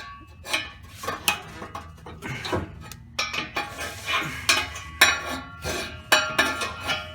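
Steel pry bar clanking against the exhaust pipe and its hangers while the hangers are pried out of their rubber mounts: an irregular run of sharp metallic clinks and clanks, some ringing briefly.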